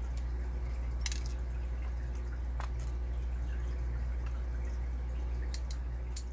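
A few small, sharp metallic clicks, with a cluster of them near the end, from lock parts and tools being handled on the bench over a steady low hum.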